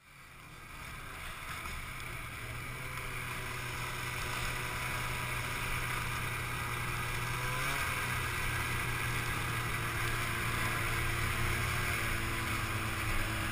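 Arctic Cat snowmobile engine running at low speed and then idling, heard from a camera on the sled: a steady drone that fades in at the start and shifts slightly in pitch about eight seconds in.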